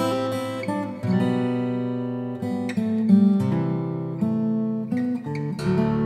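Guitar music: notes and chords picked and left to ring, a new one about every second.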